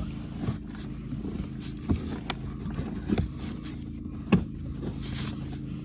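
Scattered knocks and plastic clicks as a cabin air filter is pushed and worked into its housing, the sharpest about four seconds in, over a steady low hum.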